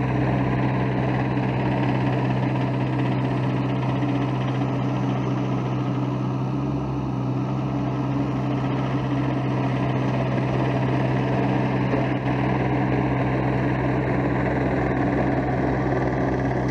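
Sunward mini excavator's engine running steadily, a constant low hum with overtones, as the machine travels and works on gravel.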